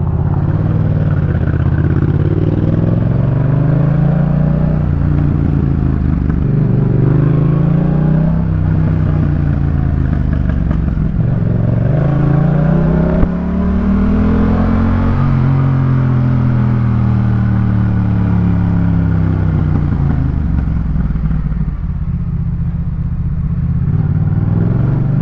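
Yamaha MT-07's 689 cc parallel-twin engine through a Jeskap K4 full exhaust system, heard while riding. The engine note climbs and drops in pitch several times as the bike accelerates and eases off, with one sharp click about halfway through.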